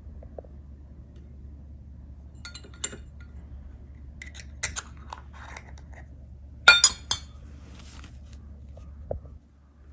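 Light clinks and taps of ceramic paint dishes and a brush against them while mixing paint, about half a dozen separate clinks, the loudest about two-thirds of the way through, over a steady low hum.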